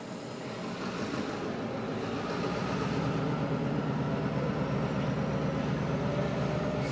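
Diesel freight locomotives' engines running as they move slowly through a yard, growing louder over the first few seconds and then holding steady.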